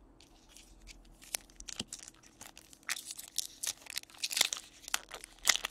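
A foil trading-card pack being crinkled and torn open, its crackling growing busier over the last couple of seconds. It follows a few light clicks of cards being set down on the table.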